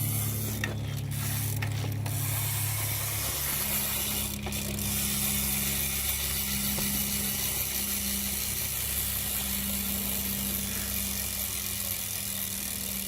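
Rear freewheel hub of a Mongoose BMX bike clicking as the wheel spins freely: a steady, fast ratcheting buzz of the pawls that keeps going without a break.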